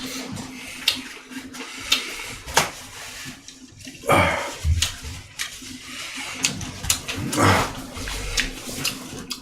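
Close-up eating sounds: wet chewing and smacking with sharp mouth clicks, and a couple of longer wet slurps about four and seven seconds in.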